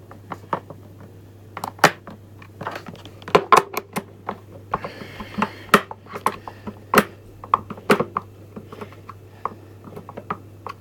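Hand screwdriver tightening screws into the plastic housing of a Henry vacuum cleaner's motor unit: irregular sharp clicks and taps of the tool against the screws and plastic, with a brief scratchy rasp about halfway through.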